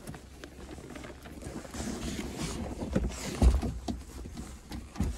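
A car's rear seat being lifted and folded by hand: fabric-covered cushion and seat hardware rustling and shifting, with a couple of dull thumps, the clearest about three and a half seconds in and another near the end.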